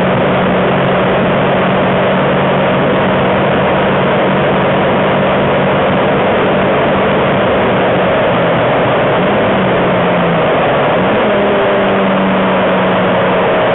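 Renault Twingo RS's 1.6-litre four-cylinder engine at full throttle, heard from inside the cabin under a loud, steady wash of road and wind noise at high speed. From about eight seconds in, the engine note shifts pitch several times as the car brakes hard for the corner.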